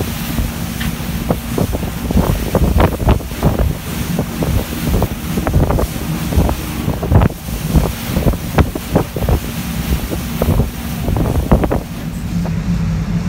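Wind buffeting a phone microphone aboard a moving boat, in loud irregular gusts over a steady low engine drone and rushing water. About twelve seconds in the gusts stop, leaving a smoother, steadier engine hum.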